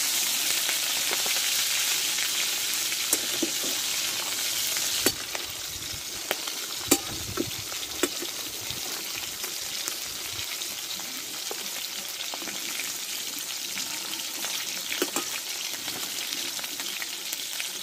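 Pieces of catla fish head sizzling as they fry in hot oil in a metal kadai. The sizzle is loudest at first and drops somewhat about five seconds in, and a flat metal spatula against the pan gives a few sharp clicks.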